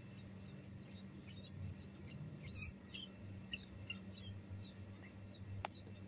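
Bulbul nestlings giving thin, high begging chirps, short falling notes at about two or three a second, while being hand-fed. A steady low hum runs underneath, and a single sharp click comes near the end.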